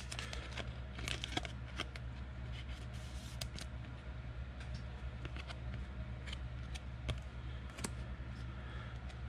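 Football trading cards handled by hand: scattered soft clicks and rustles as cards slide and tap against each other, over a steady low hum.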